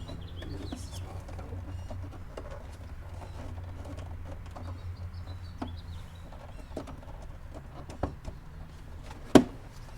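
Scattered clicks and knocks of plastic intake parts being handled and seated in a car's engine bay, with one loud sharp knock near the end. A low steady hum runs under them.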